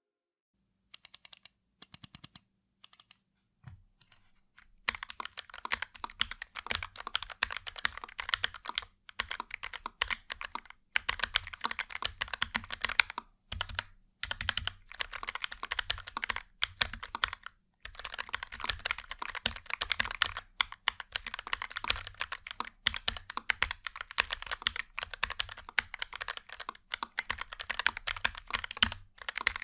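Typing on an X-Plus VickyBoard mechanical keyboard with Gateron G Pro yellow linear switches, which sit directly in the acrylic top case with no plate and a thin foam layer. It starts with a few light, scattered keystrokes, then settles about five seconds in into fast, continuous typing with brief pauses.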